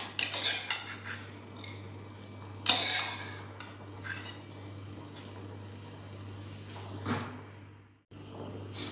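Black pigeon peas (kacang undis) being tipped from a bowl into a small saucepan of boiling water, with clinks and knocks of the bowl against the pan. The loudest knock comes about three seconds in and another near seven seconds.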